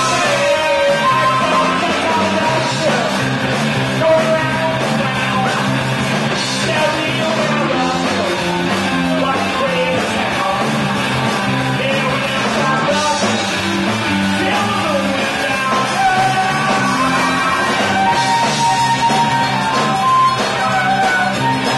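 Live rock band playing with electric guitars and drums. Near the end a harmonica plays long held notes over the band.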